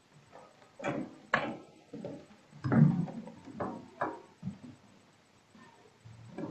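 Footsteps and knocks on wood as a man steps down from a wooden pulpit: about half a dozen irregular thumps and clunks, fainter after the first few seconds.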